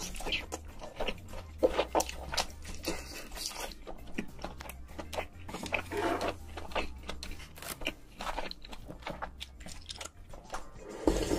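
Close-miked eating sounds: noodles slurped and chewed, with many short wet mouth clicks and smacks. Near the end, broth is sipped from the bowl.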